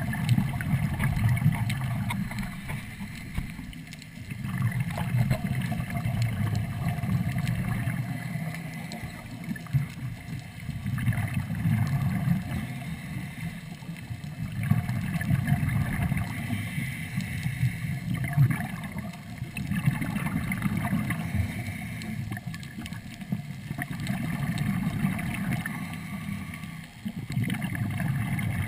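Diver breathing underwater through a Third Lung hookah regulator: exhaled bubbles gurgle and rumble in surges about every four to five seconds, over a steady underwater hiss.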